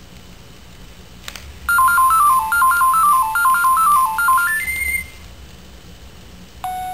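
Sony AIBO robot dog playing a short electronic melody of quick beeping tones for about three seconds, ending on a higher held note. A single lower beep sounds near the end.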